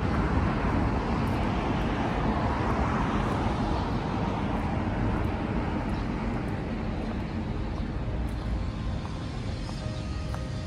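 Road traffic noise: a vehicle passing, its sound swelling about three seconds in and then easing off, over a steady low rumble.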